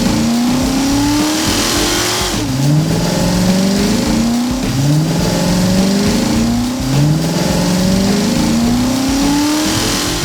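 Cartoon car engine sound effect accelerating hard, like a race car. Its pitch rises over about two seconds, drops back and rises again, about five times over, like shifting up through the gears.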